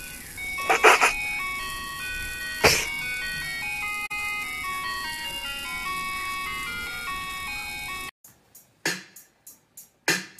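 Background music: a tinkling, chime-like melody of single high notes. Two short, loud noise bursts cut across it about a second in and again near three seconds. Near the end the music stops abruptly and a run of sharp taps follows.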